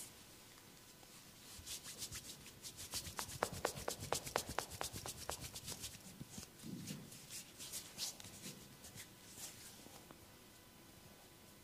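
Hands rubbing and striking skin in a massage: a quick run of short strokes, about five a second, then slower, scattered ones.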